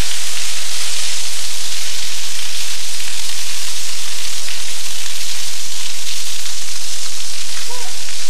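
Loud, steady hiss of rushing water.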